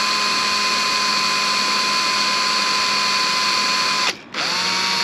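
Makita cordless drill running at a steady high speed as it drills a hole into the crack in a caravan sunroof pane. It stops briefly about four seconds in, then spins up again.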